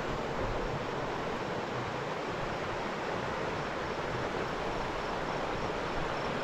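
Creek water rushing steadily, a full, even rush with no breaks. A faint insect chirp repeats about twice a second over it.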